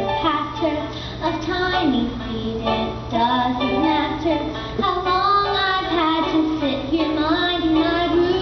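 Children's voices singing a musical-theatre song, the melody moving between held notes.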